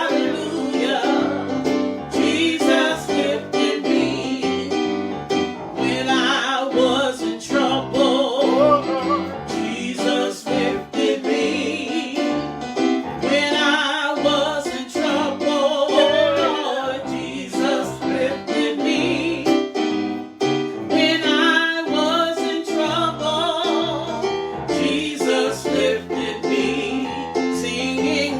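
A woman singing a slow worship song with vibrato, accompanied by piano.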